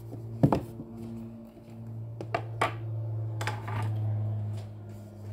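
Craft board and paper being handled on a table: one sharp knock about half a second in, then a few lighter taps and scrapes, over a steady low hum.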